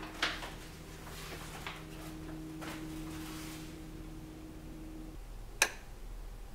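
Sheer curtains being drawn open by hand: a few soft swishes of fabric and runners over a steady low hum that stops about five seconds in. Near the end comes one sharp click.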